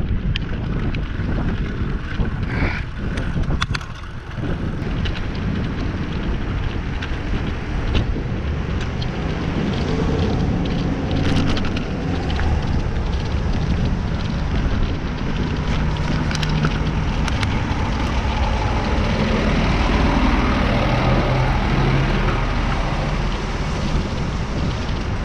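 Steady rush of wind and road noise on the microphone of a camera riding on a moving bicycle, with the engine hum of nearby street traffic under it, more noticeable in the second half.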